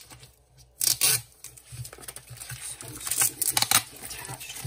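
A cardboard comic mailer and the clear plastic sleeve on the comic inside rustling and crinkling as the comic is handled out of the mailer. There is a short scraping rustle about a second in, then a quick run of sharp crinkles a little after three seconds.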